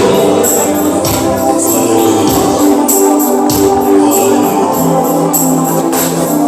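Gospel worship music: held chords over a steady percussion beat.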